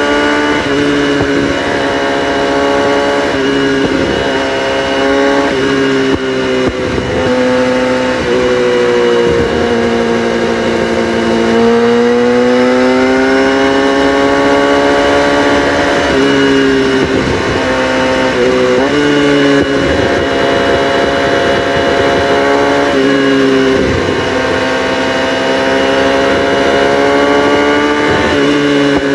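Kawasaki ZX-6R inline-four motorcycle engine running with its catalytic converters deleted, pulling through the revs with several sudden pitch drops as it changes gear, and a slower fall and rise in pitch midway.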